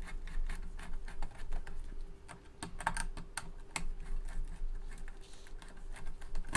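Screwdriver working the screws of a car amplifier's power terminal block as wires are fastened: irregular small metallic clicks and taps, a few a second, over a faint steady hum.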